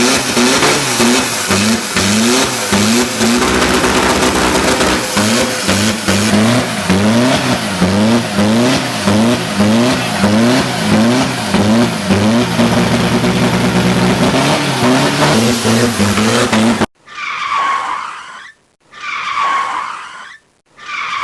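Car engine revving up and down rapidly and repeatedly over loud tyre and road noise. After an abrupt change about three-quarters of the way in, three short separate tyre screeches follow, each falling in pitch.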